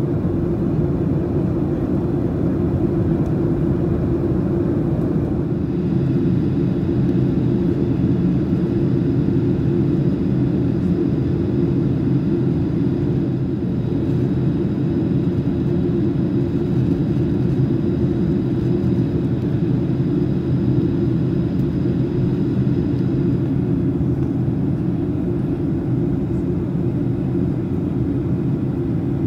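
Steady cabin noise of a Boeing 737-700 in descent: rushing airflow and the hum of its CFM56-7B engines, heard inside the cabin at a window seat over the wing. A faint high whine sits above it and fades out about three-quarters of the way through.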